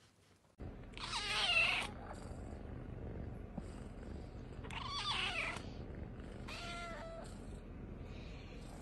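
Kitten meowing three times in high, bending calls, the first the loudest, over a steady low purr.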